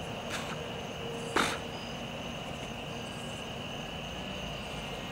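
A steady high chorus of evening insects, with two sharp clicks in the first second and a half, the second much louder.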